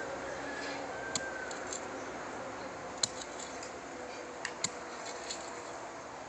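Hand hoe striking and chopping into loose garden soil, heard as a few short sharp knocks about a second, three seconds and four and a half seconds in, over a steady background hiss.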